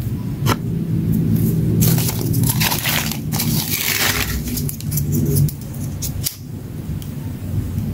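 Crunching and crackling as styrofoam and fire material are broken and handled, with sharp clicks that cluster in the middle, over a steady low rumble.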